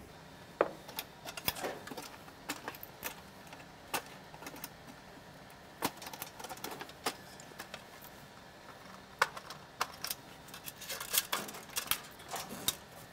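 Small, irregular clicks and light rattles of wire connectors being worked off a dryer's door switch and light socket while the plastic front bulkhead is handled, with a quick run of clicks near the end.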